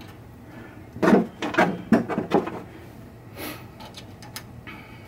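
Metal parts of a pinball machine's chime box being handled and fitted by hand: a quick run of four clunks about a second in, then a brief scrape.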